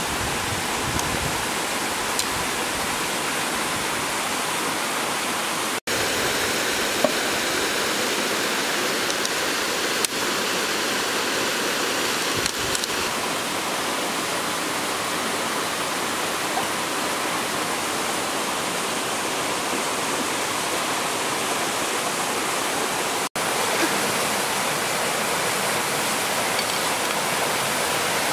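Shallow rocky stream rushing steadily over stones, an even hiss of flowing water, with a few faint clicks. It breaks off for an instant twice.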